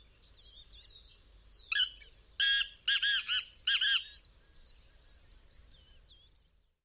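A francolin calling: one loud, harsh run of about five grating notes about two seconds in. Faint chirps of smaller birds are heard around it.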